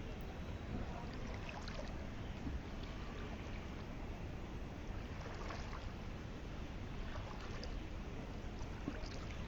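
Shallow pool water sloshing and trickling, likely around feet wading in, with a few faint splashes over a steady low rumble of wind on the microphone.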